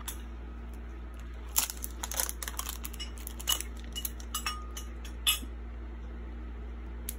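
Small plastic toy capsule being handled and pried open by hand: a scatter of sharp plastic clicks and taps, the strongest about a second and a half in and again a little after five seconds.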